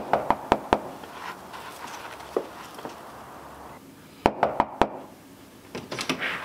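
Knuckles knocking on a front door: a quick run of about five raps at the start, then four more raps about four seconds in.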